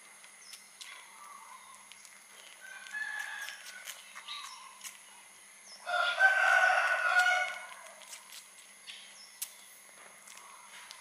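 A rooster crowing once, about six seconds in, a single long call of about a second and a half; fainter short calls come a few seconds before it.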